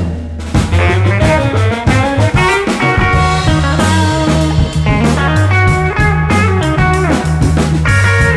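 Instrumental band music: electric guitar over a stepping bass line and a drum kit keeping a steady beat. The band comes in after a brief dip in level at the opening.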